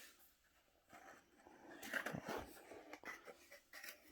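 Faint rustling and scraping of packaging being handled, loudest about two seconds in, with a few soft clicks near the end.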